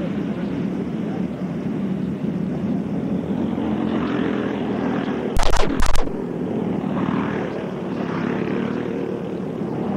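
Small 5 hp go-kart engines running steadily as the karts race their laps. Just past halfway there is a short burst of loud knocks.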